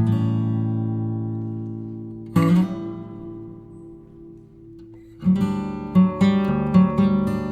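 Background music on acoustic guitar: a strummed chord rings out and fades, a second chord comes about two and a half seconds in, then a steady rhythmic strumming starts about five seconds in.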